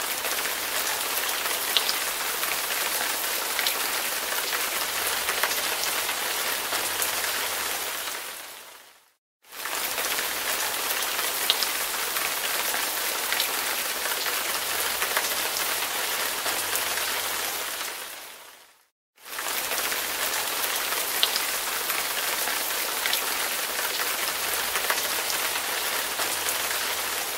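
A rain sound effect: steady hiss with a few light drop ticks, played as a loop of about ten seconds that fades out and back in twice.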